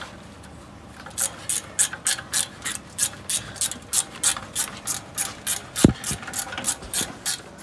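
Hand ratchet wrench clicking in quick, even back-and-forth strokes, about four a second, running down the front axle hub nut onto the Jeep's stub shaft. A single sharp knock cuts in about six seconds in.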